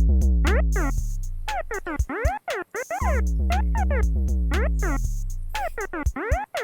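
Korg Kaossilator playing a looped electronic drum-machine beat with bass, while a synth sound glides smoothly up and down in pitch and is chopped on and off to fake a record scratch. With the scale set to off, the glides are smooth rather than stepped. The bass and beat drop out briefly twice, about two seconds in and again near the end.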